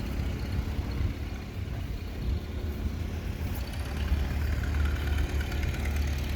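A tractor engine idling steadily, a low hum that grows a little stronger about four seconds in.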